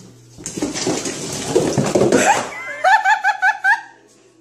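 About two seconds of scuffling, knocking noise, then a person laughing in a quick run of high, rising 'hee' notes, about five a second.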